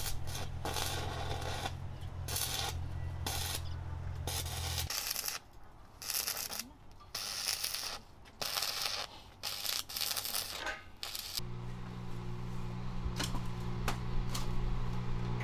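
Stick (arc) welding: the electrode crackling and sizzling in repeated bursts as it strikes and breaks the arc, welding a steel post at its base. The welding stops near the end, leaving a few light clicks.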